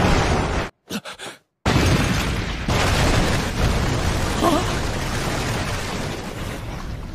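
Volcanic eruption sound effect: a loud rushing, explosive rumble. It cuts out for about a second near the start, then comes back and slowly fades.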